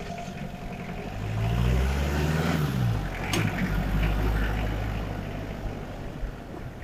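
Military vehicles driving past one after another, engines running. One passes close about two seconds in, its engine note falling as it goes by, and a short sharp click follows just after.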